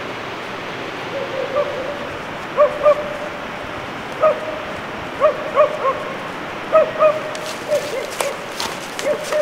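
A dog barking repeatedly in short notes, in twos and threes every second or so, over a steady rushing background. Sharp clicks join in about seven seconds in.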